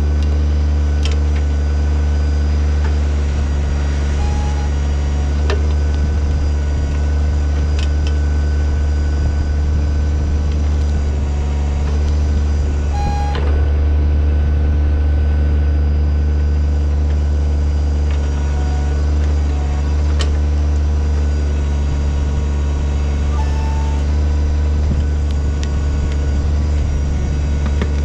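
Kubota BX25's three-cylinder diesel engine running steadily under load while the backhoe digs, with a few sharp clicks and several short high squeaks.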